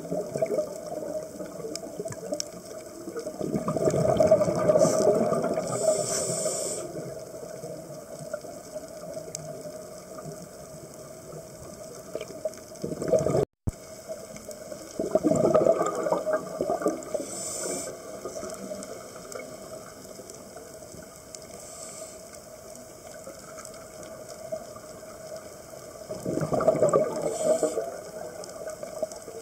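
Scuba regulator breathing heard underwater: three long bursts of exhaled bubbles about eleven seconds apart, with short hisses of inhaling through the regulator between them. The sound cuts out for a moment just before halfway.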